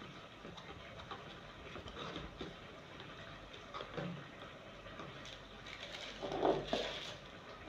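Soft scraping and light tapping of a spoon measuring corn flour from a plastic canister into a clear plastic tub, with a louder rustle and knock about six and a half seconds in.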